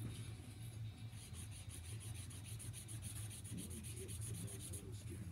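A pen or crayon scribbling on thin paper as a drawing is coloured in: quick back-and-forth scratchy strokes, several a second, over a steady low hum.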